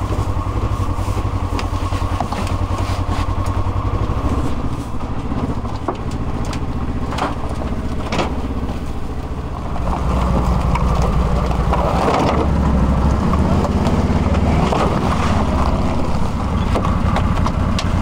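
Tractor engine running steadily; it gets louder about ten seconds in.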